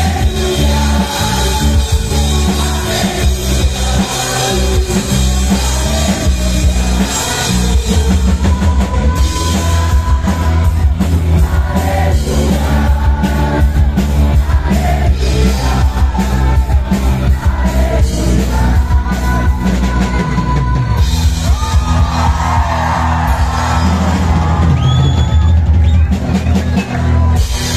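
Loud amplified rock-style band music with a drum kit and singing, with shouts from a large crowd. About three quarters of the way through the drums drop out and many voices carry on over the bass.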